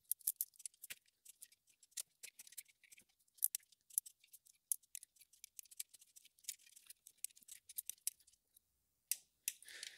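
Ratchet of a torque wrench clicking as the valvetronic bracket nuts are tightened to 10 N·m: faint, light ticks in short irregular runs.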